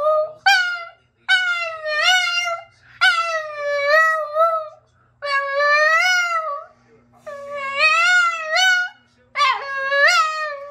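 Boston terrier howl-singing: a run of about six drawn-out, wavering howls, each a second or more long, with short breaks for breath between them.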